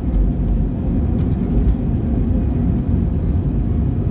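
Airbus A320 during its takeoff roll, heard from inside the cabin: the engines at takeoff power and the wheels on the runway make a loud, steady low rumble.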